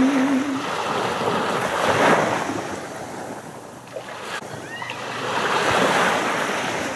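Sea waves washing up a pebbly beach, surging twice, about four seconds apart, and ebbing between.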